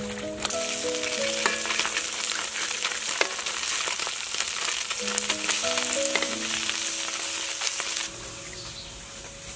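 Small whole fish frying in hot oil in a metal wok: a loud, steady sizzle full of crackles that stops suddenly about eight seconds in. Background music plays throughout.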